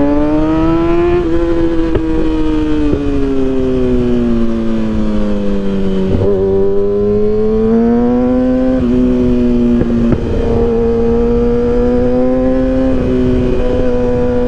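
Kawasaki ZX-6R inline-four running through an M4 exhaust with the baffle removed, heard from the bike while riding. The engine note climbs in the first second and drops a little after it, sags to a low around six seconds in, climbs again and then holds fairly steady, over a haze of wind noise.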